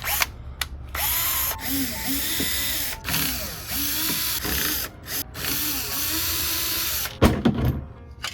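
Cordless drill-driver running in three bursts on small screws, its motor pitch rising and falling as it spins up and slows, followed by a knock near the end.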